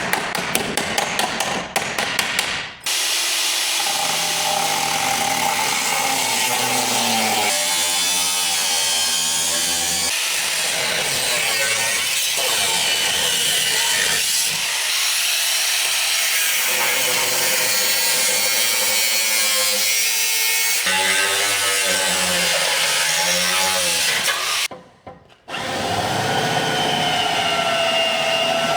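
Rapid hammer strikes on car body metal for the first few seconds. Then a power tool runs on the metal with a steady noise, its motor pitch wavering as the load changes, with sudden cuts where the sound breaks off and restarts.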